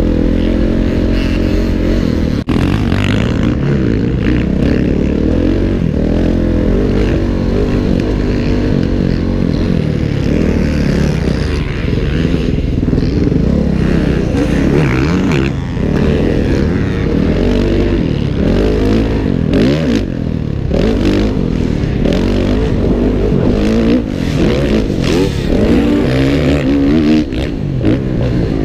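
Kawasaki motocross bike's engine revving hard and falling off again and again as the rider accelerates and brakes around the track, heard from the rider's helmet with wind rush.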